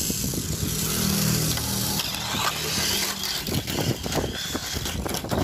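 Small electric motor of a Tamiya Mini 4WD car whirring, with clicking and rattling of the little car against the gravel and the plastic track.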